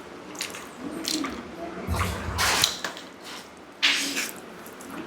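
Close-up wet eating sounds of rice with dal and dahi vada: squelching, smacking mouthfuls, with louder wet bursts about two seconds and four seconds in.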